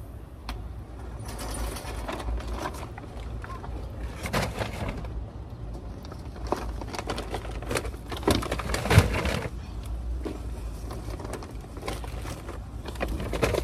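Metal shopping cart rattling and clattering as it is pushed over parking-lot pavement, with paper grocery bags rustling and knocking as they are handled, over a steady low rumble.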